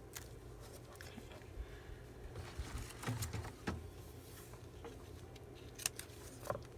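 Paper and washi tape being handled on a craft table: scattered light taps, rustles and clicks, with a couple of soft thumps about three seconds in and a sharp click near the end.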